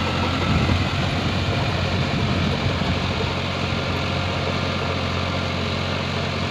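Eicher 551 4WD tractor's three-cylinder diesel engine running steadily under load, pulling a rotavator through flooded paddy mud during puddling. There are slight surges in the low rumble about half a second and two seconds in.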